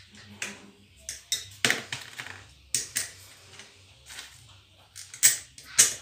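Irregular sharp clicks and taps of small parts being handled on a ceiling fan motor as the capacitor and its wires are fitted, the two loudest near the end.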